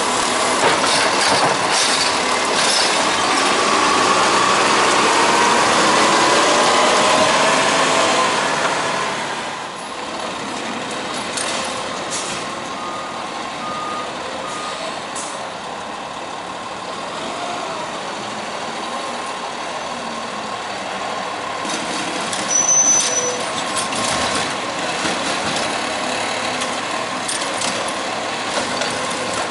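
Peterbilt 520 garbage truck with a Heil STARR automated side-loader body running hard while its arm dumps a cart, the engine and hydraulics rising and falling in pitch. About nine seconds in it drops to a lower, steady running sound, with three short beeps a few seconds later and a brief high squeal near three quarters of the way through.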